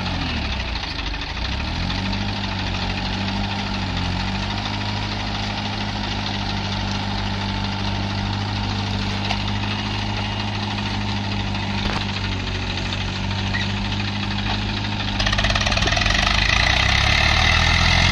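Tractor diesel engine running steadily; its pitch sags and recovers twice in the first few seconds. About fifteen seconds in it gets louder and harsher.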